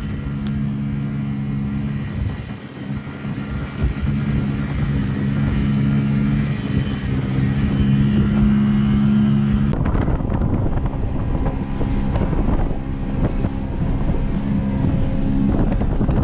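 Boat outboard motor running steadily at speed. Wind buffets the microphone and water noise rises after a sudden cut about ten seconds in.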